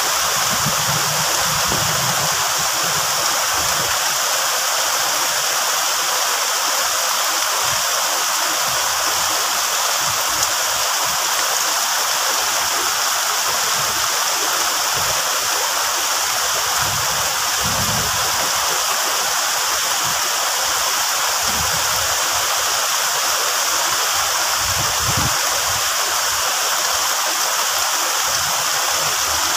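Heavy rain pouring steadily onto the leaves of a large tree and banana plants.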